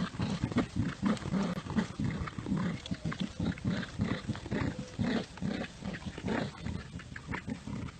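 An animal vocalizing in a rapid run of short, low sounds, several a second.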